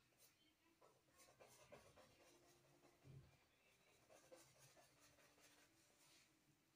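Faint, scratchy strokes of a paintbrush working paint onto a stretched canvas, several short strokes in a row, with a soft low thump about three seconds in.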